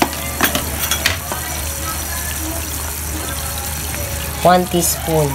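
Sweet and sour sauce boiling in a nonstick frying pan, a steady bubbling hiss, with a few light clicks of a spoon and a spoon stirring through the sauce near the end.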